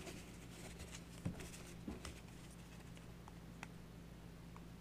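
A few faint taps and light rustles of trading cards being handled and set down on a playmat, over a steady low hum.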